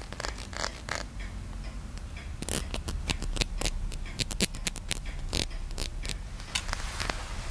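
Close-miked ASMR tapping and scratching: irregular sharp clicks, packed most densely in the middle, mixed with short scrapes.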